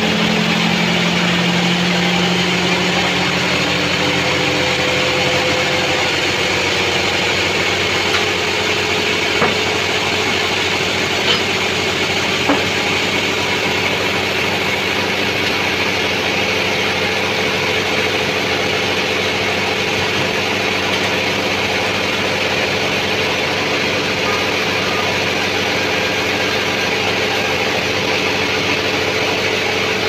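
Band sawmill running steadily while its blade saws a large albasia (sengon) log into boards. A few sharp knocks come about a third of the way in.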